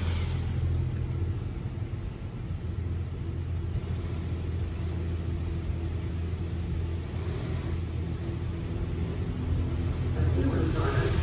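Low steady rumble and hum inside a car's cabin in a WashWorld Razor touchless automatic car wash, between spray passes. A broad hiss builds again near the end.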